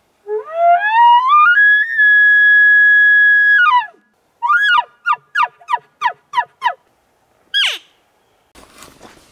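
Hand-blown bull elk bugle, made by a hunter's mouth call through a corrugated bugle tube. It rises in steps to a high whistle held for about two seconds, then breaks into about seven quick falling chuckles and ends with one short high note that drops steeply.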